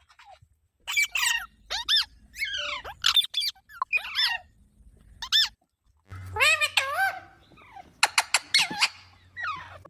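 A pet green parrot giving a string of short squeaky calls and chirps, several of them sliding up and down in pitch like mimicked speech, with brief pauses between them.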